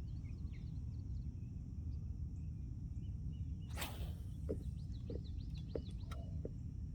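Outdoor pond-side ambience: a steady low rumble with many faint, short high chirps from birds or insects, and one brief whooshing swish about four seconds in, followed by a few light ticks.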